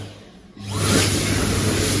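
Dyson Airblade dB AB14 hand dryer cutting out as the hands leave the slot, then starting again about half a second in with a quick rising whine and blowing steadily with a low hum.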